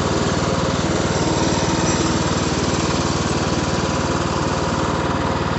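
Riding lawn mower engine running at a steady speed, with a fast even pulse.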